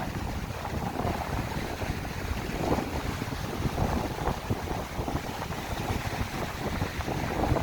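Strong wind buffeting the microphone in a heavy, uneven rumble, with waves breaking on the shore.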